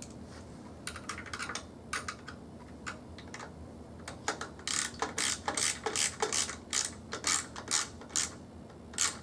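Ratchet wrench clicking as battery terminal bolts are tightened down. A few scattered clicks come first, then from about four seconds in a quick, steady run of about four to five clicks a second.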